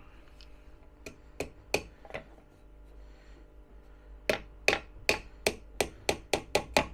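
Hammer driving nails into a thin wooden slat frame: four strikes, a pause of about two seconds, then a run of about nine blows that come faster toward the end.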